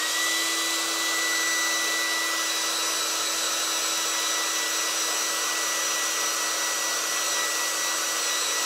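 Handheld hair dryer switched on and blowing steadily. Its motor whine rises to pitch at the very start, then holds steady over a rush of air.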